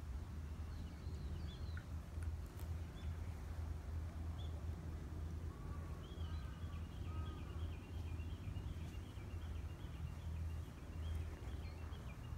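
Birds calling: scattered chirps, then a fast run of high repeated chirps through the second half, with a few lower calls alongside it, over a steady low rumble.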